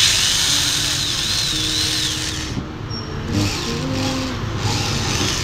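Prescott PT0101007+ 10 mm corded electric drill (280 W, 0–750 rpm) running free with an empty chuck: one run of about two and a half seconds, then two shorter bursts on the trigger.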